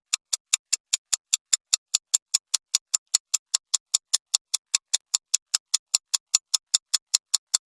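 Countdown timer sound effect: fast, evenly spaced clock ticks, about five a second, sharp and high-pitched.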